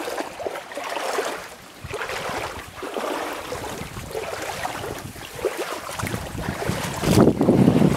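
Wind buffeting the microphone, with irregular rustling and handling noise as the camera moves through dry brush; a heavy gust of rumbling wind noise comes near the end.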